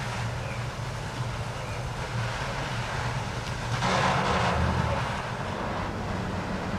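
Steady low drone of a running engine, with a louder rushing noise that swells about four seconds in and lasts about a second.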